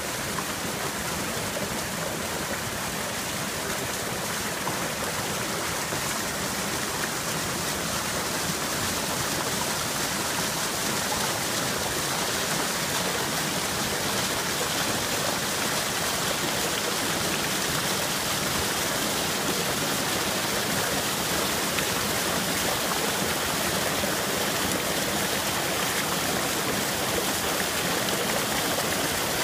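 Mountain creek rushing over and between boulders, a steady splashing flow of water.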